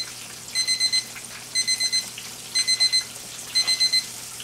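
An electronic timer alarm beeping: a rapid run of four or five high beeps about once a second, signalling that the ten-minute frying time is up. Catfish fillets sizzle quietly in hot oil underneath.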